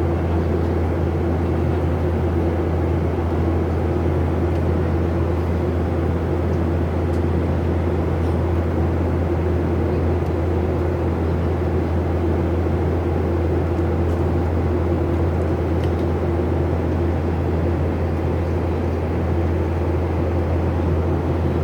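Steady cabin drone of an airliner in flight: engine and airflow noise with a strong low hum and a steady mid-pitched tone, unchanging throughout.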